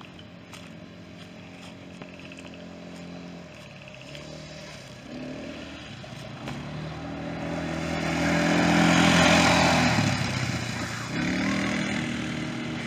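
An ATV's small single-cylinder engine running. It grows louder and nearer to its loudest at about nine seconds in, then eases off.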